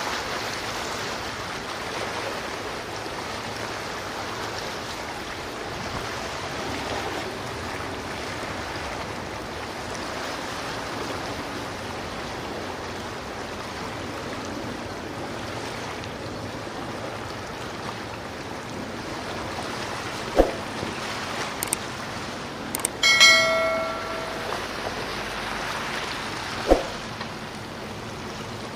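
Steady rushing of water and wind. About two-thirds of the way through there is a brief bell-like ring, and a couple of sharp knocks fall around it.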